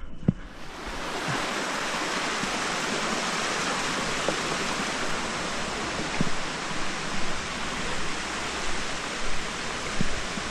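Small mountain stream rushing over rocks, a steady even hiss that sets in abruptly just after the start, with a few faint footfalls on the rocky trail.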